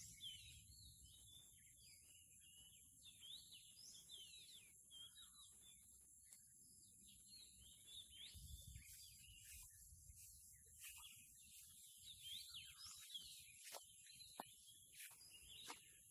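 Faint birdsong in the open: many short chirps and whistles from several small birds, over a steady high-pitched hiss and a low rumble.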